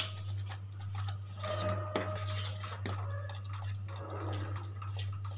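Steel spoon stirring thickening phirni in a steel pot, with light scrapes and faint clinks against the pot's sides, over a steady low hum.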